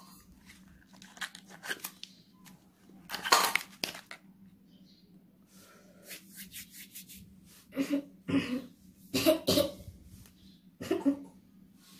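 Wrapper of an M-seal epoxy putty pack being torn open and crinkled, with one loud rip about three seconds in. In the last four seconds a man coughs three times.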